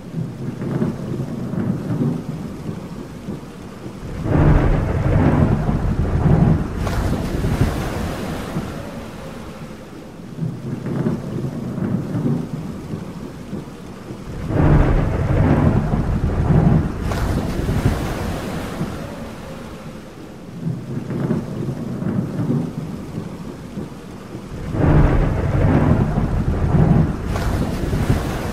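Thunder rolling over steady rain, with long low rumbles that swell and fade, the loudest about every ten seconds.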